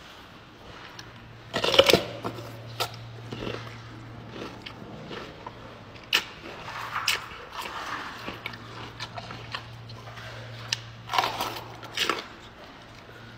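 Gorilla chewing an apple: irregular crunches and smacks, the loudest cluster about two seconds in. A steady low hum runs underneath.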